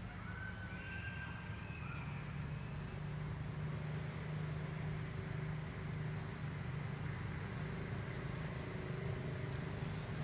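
A low, steady engine hum that grows a little louder after the first few seconds, with a few faint high chirps near the start.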